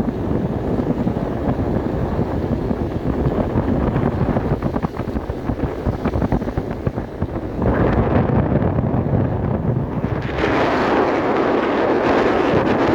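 Wind buffeting the microphone: a steady, low rushing noise that swells louder about eight seconds in and again from about ten seconds.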